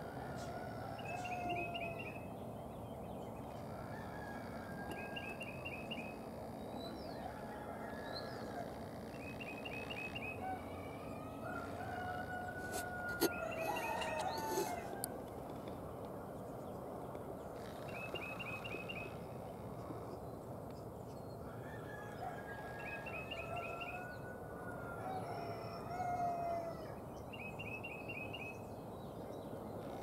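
Several birds calling: a short rapid run of high notes repeats every few seconds over lower, drawn-out calls. A few sharp knocks come about halfway through.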